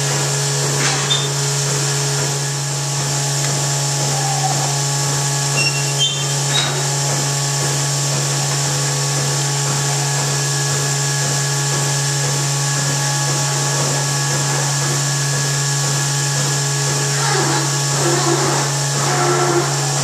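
Steady drone of a milking parlour's milking system, a low hum with a whining overtone that holds unchanged, as the vacuum pump runs for the milker units.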